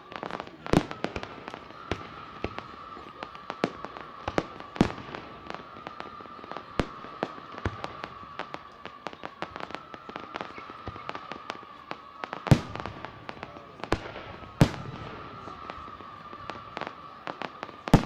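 Aerial fireworks display: shells bursting overhead in a fast, uneven run of cracks and pops, with several much louder bangs among them, about a second in, near five seconds, twice a couple of seconds apart past twelve seconds, and right at the end.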